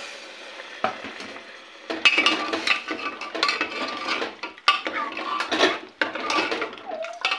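Metal ladle stirring in a pressure cooker, scraping and clinking against the pot through a wet rice-and-dal mixture with freshly added water. The stirring is quieter at first and turns into a busy, irregular clatter about two seconds in.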